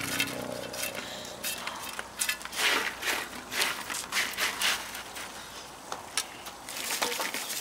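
Crisp fried banana chips rustling and clicking against each other and a banana leaf as a hand spreads and picks at them, an irregular run of dry crackles and light taps, busiest in the middle.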